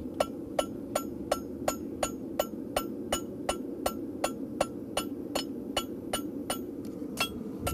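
Farrier's hammer striking a horseshoe on the anvil in a steady, even rhythm of nearly three ringing blows a second, over a steady low hum. These are controlled blows worked along the shoe so as not to close up the nail holes.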